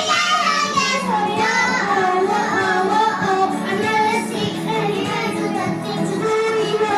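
A pop song with a high voice singing drawn-out, wavering wordless notes over its instrumental backing.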